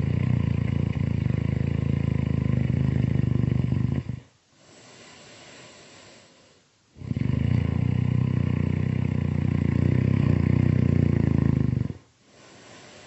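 Loud, exaggerated cartoon snoring: two long, deep buzzing snores about five seconds each, separated by a much quieter breathy hiss, in a slow regular breathing rhythm.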